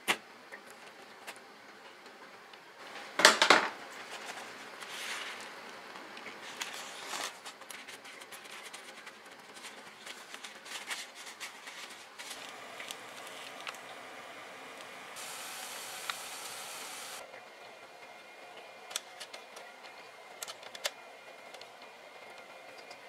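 Kitchen handling noises during fish preparation: a loud brief noise about three seconds in, then soft rustling of a paper towel pressed onto fish on a styrofoam tray. A steady hiss lasts about two seconds near the middle, and a few light clicks follow.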